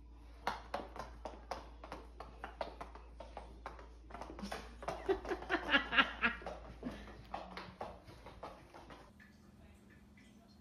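A dog's rubber-booted paws clattering on a hard floor as it walks, a long run of quick, evenly spaced taps, with a brief voice in the middle. The steps stop near the end.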